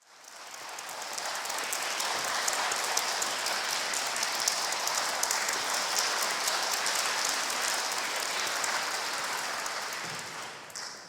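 Audience applauding, a dense, steady clatter of clapping that dies away near the end.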